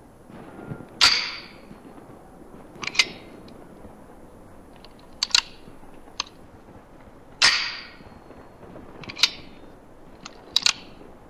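A series of sharp cracks, about seven at irregular intervals, each with a short ringing tail.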